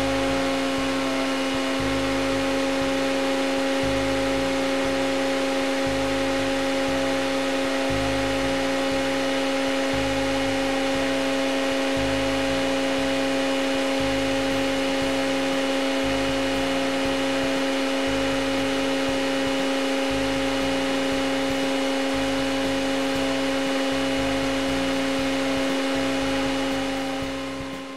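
Panasonic 775 upright vacuum cleaner running steadily, its motor whine holding one pitch over the rush of air, fading away near the end.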